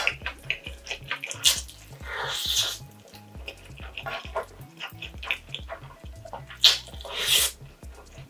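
A person slurping spicy stir-fried ramen noodles in two long wet pulls, one about two seconds in and another about seven seconds in, with short wet chewing and lip-smacking clicks between.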